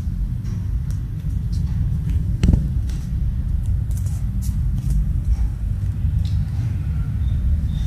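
A steady low rumble with scattered light clicks, and one sharper knock about two and a half seconds in as the kitten climbs out of a plastic basket.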